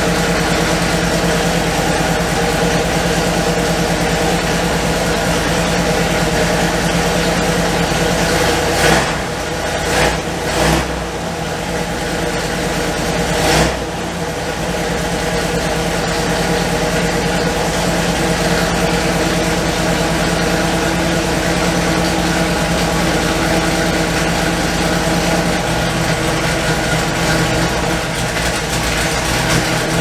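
Mopar 408 stroker small-block V8 idling steadily early in its first run in the truck, with a few brief sharp louder sounds between about nine and fourteen seconds in.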